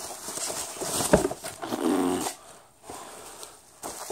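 Cardboard and plastic packaging rustling and scraping as a boxed Funko Pop figure is worked out of its box, with a sharp snap about a second in.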